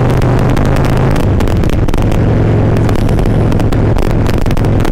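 Harley-Davidson Ultra Classic Limited's V-twin engine running at a steady road speed, with wind rushing over the helmet-mounted microphone.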